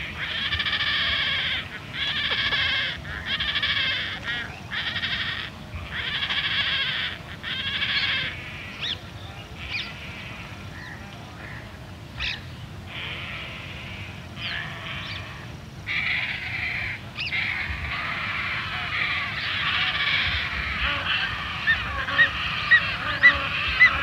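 Painted stork fledglings calling, with other storks and distant water birds behind them. There is a run of drawn-out calls with short gaps, then a quieter lull with a few short notes. In the second half the calling grows into a denser chorus, with several sharp, short, loud notes near the end.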